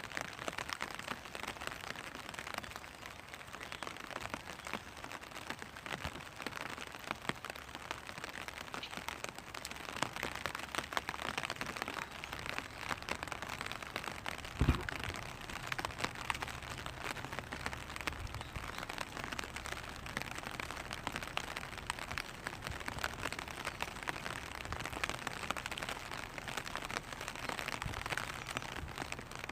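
Rain pattering steadily on a clear vinyl umbrella: a dense patter of small drops with scattered louder drips, and one heavier thud about halfway through.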